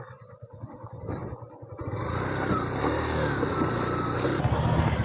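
Motorcycle engine running, louder from about two seconds in.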